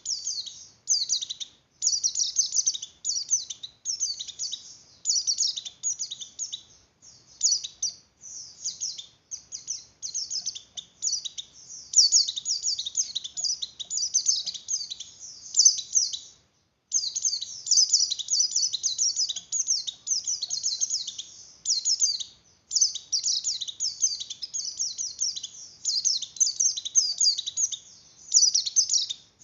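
A white-eye (pleci) in breeding condition twittering. Its fast, high, chattering song phrases of about a second each follow one another with only brief pauses between them.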